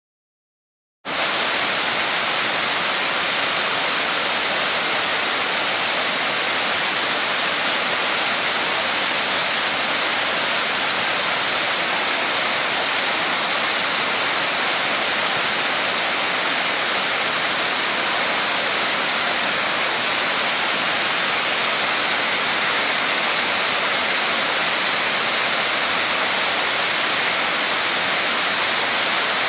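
Swallow Falls, a waterfall in several channels, pouring steadily over rocks in an even rush of water; it comes in suddenly about a second in.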